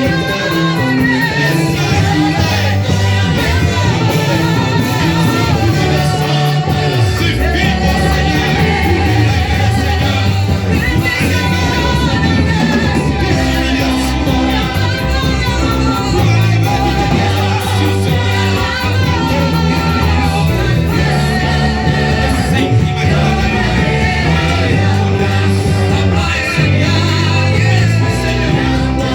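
Church worship music: singing voices over a band with a steady bass line, loud and continuous.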